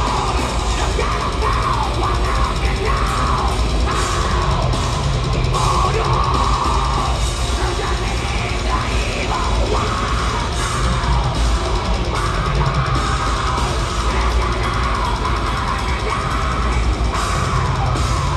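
Black metal band playing live, with distorted electric guitars and a drum kit in a loud, dense, unbroken wall of sound, heard from the crowd.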